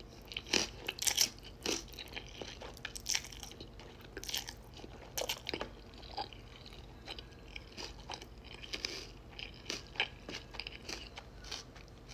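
A person chewing and crunching food close to the microphone: irregular crisp crunches and wet mouth sounds, eating with bites every second or so.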